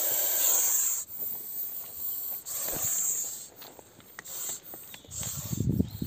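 Russell's viper hissing in a series of breaths, each up to about a second long with short pauses between. A low rumble comes in near the end.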